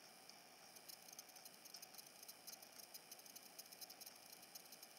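Near silence: room tone with faint, rapid high-pitched clicking.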